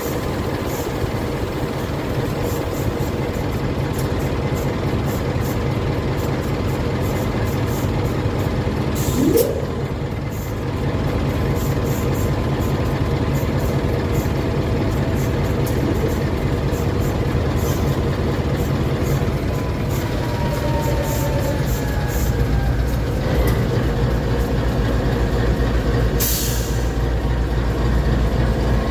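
GE C44ACi diesel-electric locomotive running at close range, a loud steady low engine drone. Two short hisses of released air come about a third of the way in and near the end. The engine note grows louder in the last third as the locomotive begins to creep forward.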